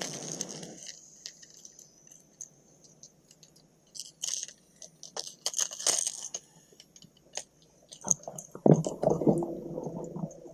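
Small clicks and ticks of a hard plastic topwater lure and its hooks being handled. Near the end comes a louder noisy stretch of about a second and a half as the lure is cast onto the water.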